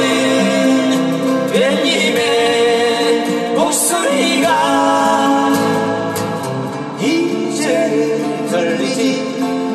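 Acoustic guitars strummed in a slow folk ballad, with sung vocal lines over them.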